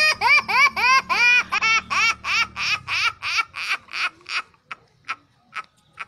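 A man laughing hard in a high-pitched, repeated laugh, about four short rising bursts a second at first, slowing and fading into breathy gasps toward the end.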